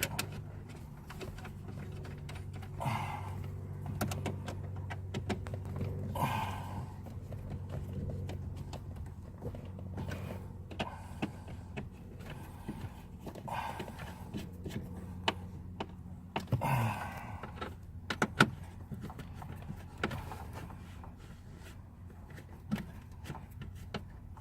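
Scattered clicks, taps and knocks of plastic car interior trim and console parts being handled and fitted, with a few louder clunks, over a steady low hum.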